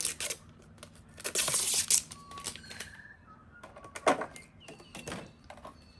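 Protective plastic film being peeled off the light's panel, a dry tearing hiss about a second in, among clicks and knocks of the parts being handled.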